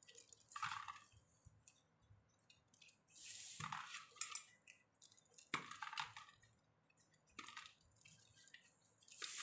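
Faint, scattered rustling and soft knocks as a hand rubs spice-coated bitter gourds around a stainless steel bowl, the gourds bumping against the metal now and then.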